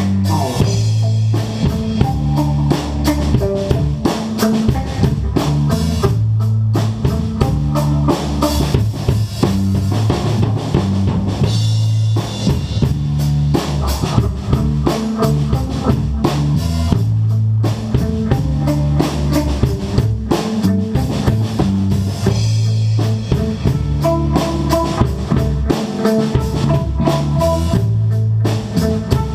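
Live instrumental soul jam by a three-piece band, electric guitar, electric bass and drum kit, playing a steady groove with the bass line loudest. Near the end the guitar adds higher repeated notes.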